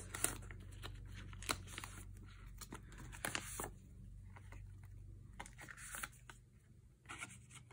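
Clear plastic photocard sleeves and binder pocket pages rustling and crinkling as cards are slid into the pockets, with light clicks and taps. Busy for the first few seconds, then quieter with only a few scattered rustles.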